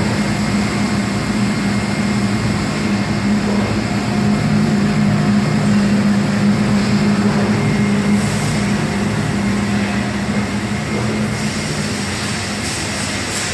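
Amada LASMAC LCV-3015B2 CNC laser cutting system running: a steady machine hum with a thin constant whine over it. The higher hiss grows a little louder near the end.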